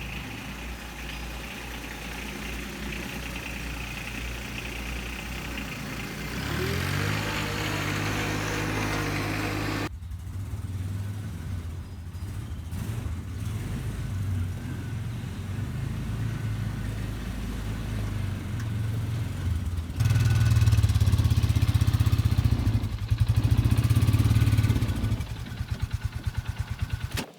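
Vehicle engine running, rising in pitch as it revs up about a quarter of the way in. The sound changes abruptly twice, a third and two thirds of the way through, as between separate clips, and the last stretch is the loudest.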